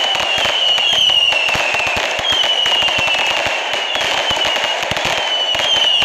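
Multi-shot fireworks cakes firing in rapid succession: a dense, continuous crackle of bangs and bursts. Through it run high whistles, each sagging slightly in pitch, about once a second.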